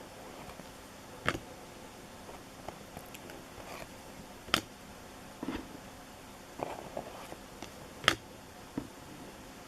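Baseball cards and packs being handled: three sharp snaps or taps a few seconds apart, with soft rustling between.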